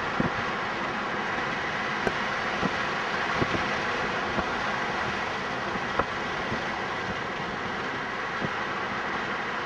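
Steady road and engine noise of a moving car, heard from inside the car, with a few light knocks.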